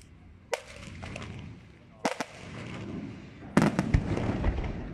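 Aerial firework shells bursting: a sharp bang about half a second in, two close together around two seconds, and the loudest cluster of bangs about three and a half seconds in, each followed by a rolling rumble of echo.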